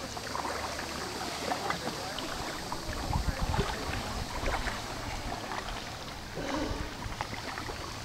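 Canoe paddle strokes dipping and splashing in calm water, with small irregular drips and splashes, and a gust of wind buffeting the microphone about three seconds in.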